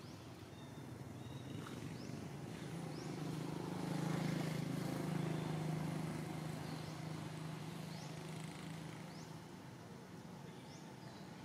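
A low engine hum swells to its loudest around the middle and fades again, like a motor vehicle passing at a distance, with faint short bird chirps now and then.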